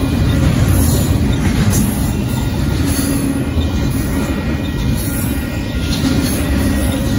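Double-stack intermodal freight cars rolling past at a grade crossing: a loud, steady rumble of steel wheels on rail.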